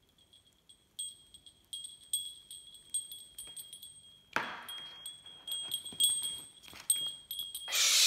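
A small metal chime or bell jingled over and over, each strike ringing on at a high pitch. A short rush of noise comes about halfway through, and a loud rush of noise comes just at the end.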